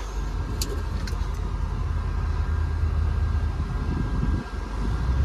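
2013 International TerraStar medium-duty truck's diesel engine running smoothly as the truck pulls away in drive, a steady low hum heard from inside the cab. A few light clicks sound in the first second or so.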